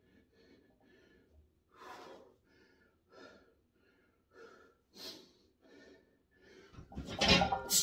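A lifter breathing hard in short, repeated breaths while bent over a heavy barbell, the breaths growing louder. Loud music comes in about seven seconds in.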